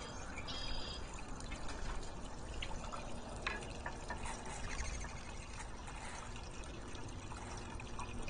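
Backyard water feature trickling and splashing steadily, with a few short high-pitched ticks.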